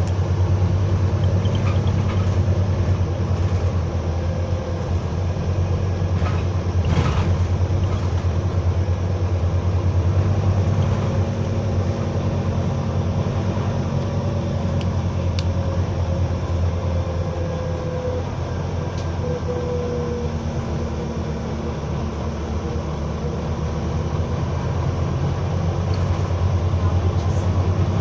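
Double-decker bus engine running with a steady, loud low drone and a faint wavering whine above it: the loud weird noise that is heard only while the engine is on.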